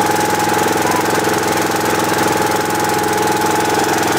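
Loud air compressor running steadily with a rapid, even chugging, pumping up the pressure tank of a pneumatic pumpkin cannon.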